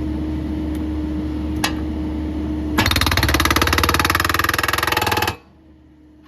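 Breaker hammer pounding a limestone rock in rapid, evenly repeated blows for about two and a half seconds, then cutting off suddenly. Before the hammering, an engine runs steadily.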